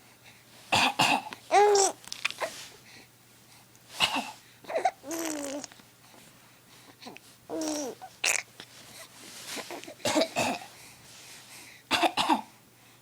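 Short bursts of coughing every few seconds, each answered by a baby's giggles and squealing babble.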